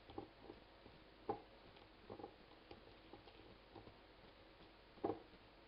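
Fingers mixing dry ground spices in a ribbed glass bowl: faint, irregular light taps and scrapes against the glass, with a few louder taps about a second in, at two seconds and near the end.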